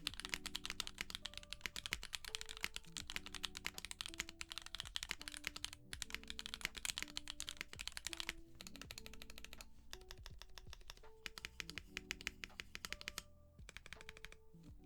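Mechanical keyboard fitted with Jerzzi Lotus V2 linear switches being typed on fast, a dense stream of keystrokes broken by a few short pauses, over soft background music.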